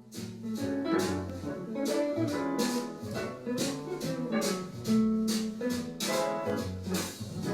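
Music with guitar and a steady drum beat played back through a Bose Smart Soundbar 900.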